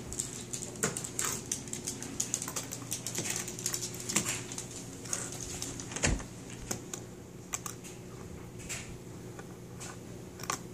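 Irregular light clicks and taps of a screwdriver knocking and scraping against a wooden screw board and its plastic screws, with a heavier thump about six seconds in. A faint steady hum runs underneath.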